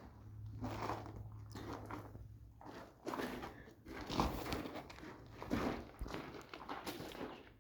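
Footsteps of a person walking, unevenly spaced steps with a crunchy texture.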